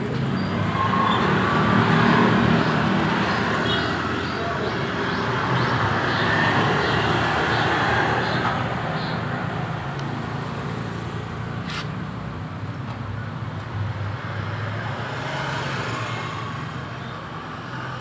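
Road traffic going past, the noise swelling about two seconds in and again around six to eight seconds before easing off, with one sharp click near the middle.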